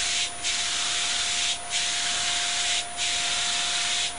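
Backwash spray jets of a rotating drum filter spraying pressurized water at about 90 psi onto the mesh screens, cleaning sediment off them. This makes a steady hiss that dips briefly about every second and a quarter, with a steady hum underneath.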